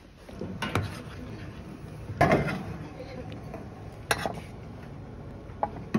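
Metal serving tongs clanking against a stainless-steel compartment lunch tray as food is served, with a few sharp clinks, the loudest about two seconds in.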